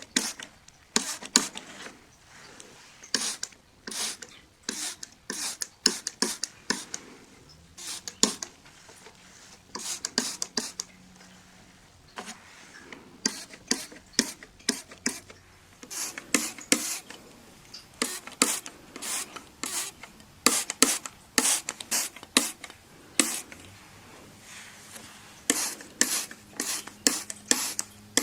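Window glass being cleaned: short, irregular rubbing strokes on the pane, several a second, with brief pauses between runs.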